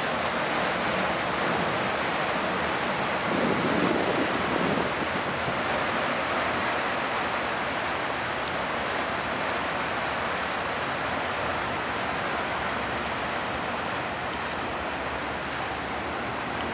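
Propeller wash from the ferry M/V Samish churning as it pulls away from the slip: a steady rushing of water, briefly louder about four seconds in, with some wind on the microphone.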